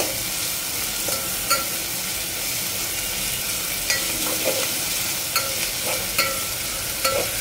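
Sliced onions sizzling steadily in hot oil in a metal pot while being sautéed until pink. A metal spatula scrapes and clinks against the pot every second or so as they are stirred.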